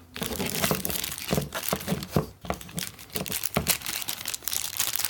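Packaging crinkling and rustling in the hands, in quick irregular crackles, as a razor handle is unwrapped and handled.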